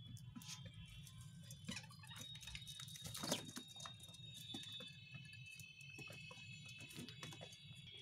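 Budgerigars pecking and husking seeds in a clay bowl: a fast, irregular run of small clicks and taps, with faint high chirping in the background.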